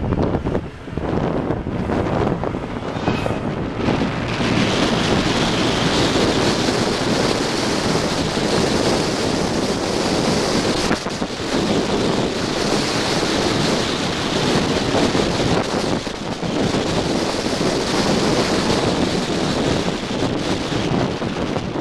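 Wind rushing over the microphone and road noise from a moving vehicle, a steady loud wash with a brief dip about half a second in.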